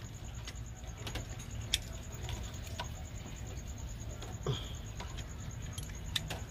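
Small wrench tightening the bolt of a side-post battery terminal adapter: scattered light metallic clicks and scrapes as the wrench turns and shifts on the nut, with one sharper tick about two seconds in.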